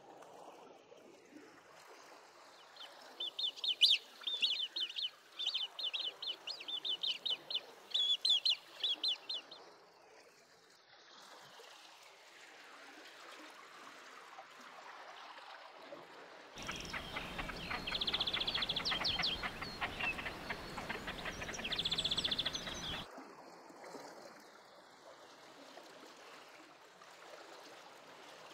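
Great crested grebe chicks piping: a fast run of short, high begging calls lasting about six seconds. Later comes another stretch of similar calls over a louder low rumble that cuts in and stops abruptly, with a faint watery wash in between.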